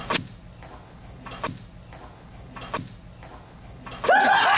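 Three sharp ticks, evenly spaced about a second and a quarter apart, then about four seconds in a group of young men breaking into excited shouts and cheers.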